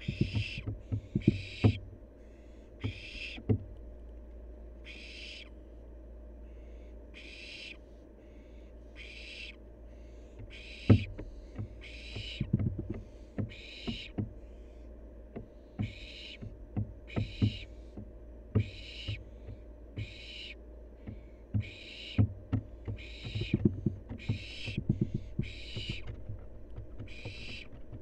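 Young barn owl giving its repeated hissing, snoring begging call, one short hiss about every second, the food-begging call of barn owl young. Scattered low knocks and scrapes run underneath, the loudest about 11 seconds in.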